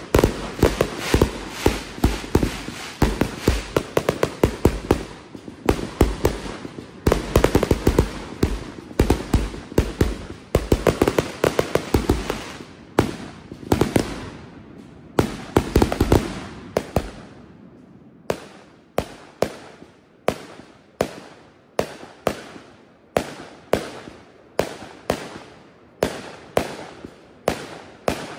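Consumer firework cake firing: a dense, rapid volley of launch thumps and bursting reports for about the first seventeen seconds, then single shots at an even pace, about three every two seconds.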